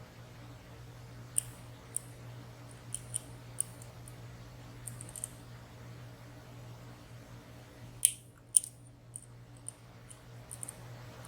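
Small sharp clicks of lock picks working the sliders and pins inside a WSW W10 high-security padlock, coming irregularly, with the two loudest about eight seconds in, over a steady low hum.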